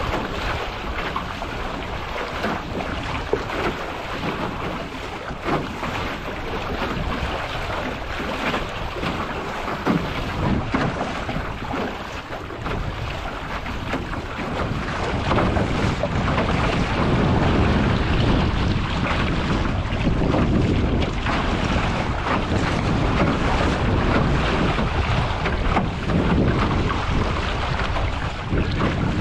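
Wind rushing over the microphone and choppy water splashing along the hull of an aluminium Grumman 17 canoe under sail, with a few brief slaps of water. The wind and water noise grows louder about halfway through.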